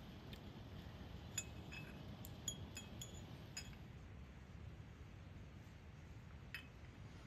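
Small glass tea glasses and tableware clinking lightly: one clink near the start, a quick run of about seven clinks between about one and four seconds in, and one more near the end, over a faint low outdoor rumble.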